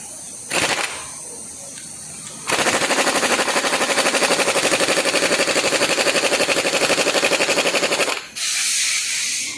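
A pneumatic tool rattles in rapid, even hammering pulses for about five and a half seconds, after one short burst. A second of hissing compressed air follows near the end.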